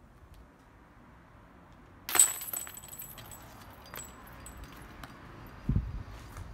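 A golf disc hits the chains of a portable disc golf basket about two seconds in, and the metal chains jangle and clink, ringing on for a couple of seconds. A lighter chain clink follows about two seconds later, and a low thump comes near the end.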